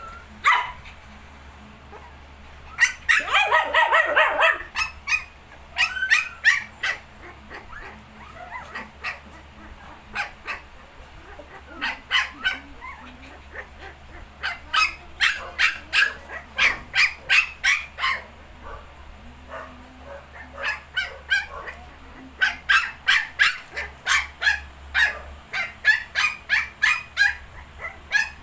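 19-day-old puppies yipping and squeaking in quick runs of short high-pitched calls, with a louder stretch of whining about three seconds in.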